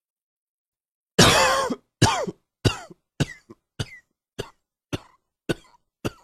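A person coughing over and over: one longer, loud cough about a second in, then a string of short, sharp coughs roughly every half second.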